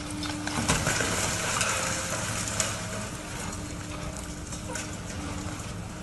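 High-reach demolition excavator working, its engine and hydraulics giving a steady hum under cracks and knocks of concrete breaking as the jaws crush the top of the building. A sharp crack comes about a second in, followed by a couple of seconds of crumbling and rubble falling, with further knocks later.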